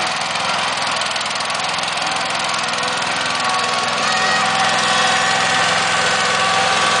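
Cub Cadet garden tractor engine running steadily as the tractor drives along, growing a little louder about halfway through as it comes closer.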